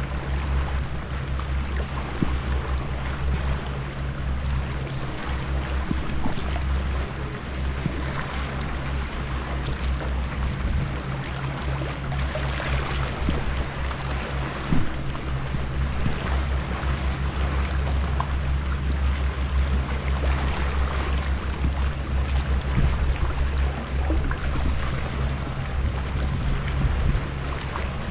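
Shallow sea water lapping and sloshing around a wader, over a steady low rumble.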